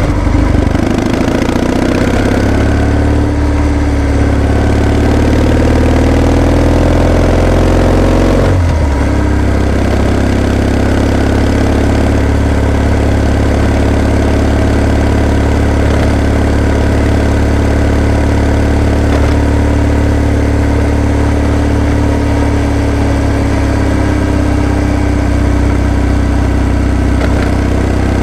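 Kawasaki W650 air-cooled parallel-twin engine under way, its pitch rising as it pulls through a gear. A gear change comes about eight seconds in, after which it runs at a steady pitch.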